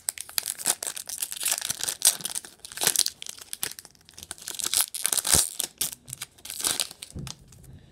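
Foil wrapper of a 2020 Playoff football trading-card pack being torn open and crinkled by hand: a dense, continuous run of rips and crinkles that thins out near the end.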